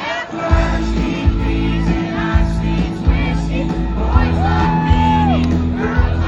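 Live country concert music: a band plays over a heavy steady beat while a singer holds long sung notes, with shouts from the crowd.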